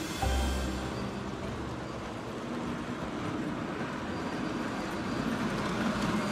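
O gauge electric toy train, a chrome streamliner, rolling along three-rail metal track with a steady rumble of wheels and motor, with a short low thud just after the start.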